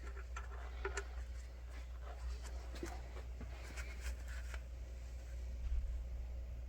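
Faint clicks and short metallic scrapes of a wrench working a nut welded onto a broken bolt, backing the bolt out of the engine case. They come during the first four or five seconds, over a low steady hum.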